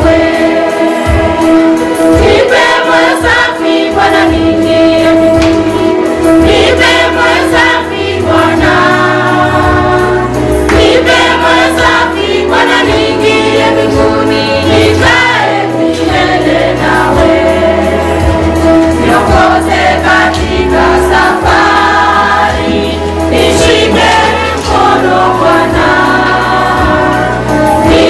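A choir singing a gospel song over instrumental backing with a bass line that moves in steps; loud and continuous.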